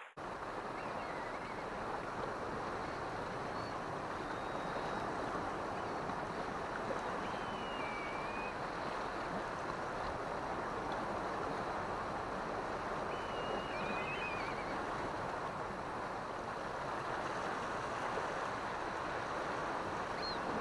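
Steady wash of sea surf against a rocky shore, with a few faint high gliding calls of a bird now and then.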